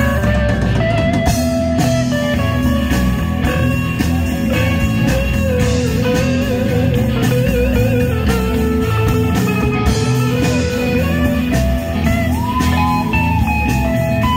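Live band playing an instrumental break, with a lead guitar line bending and wavering in pitch over a full band with strong bass.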